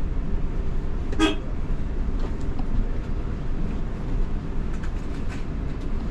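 Steady low rumble of a coach bus's engine and road noise heard from inside the cabin, with one short vehicle-horn toot about a second in.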